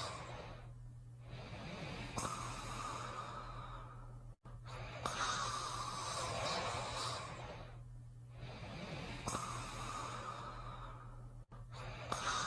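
Cartoon snoring: a rasping snore alternating with a whistling breath, repeating in a slow cycle about seven seconds long, twice.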